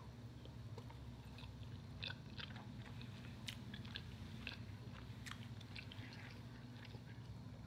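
Faint mouth sounds of someone chewing a mouthful of baked salmon and rice: soft, wet, scattered clicks, over a steady low hum.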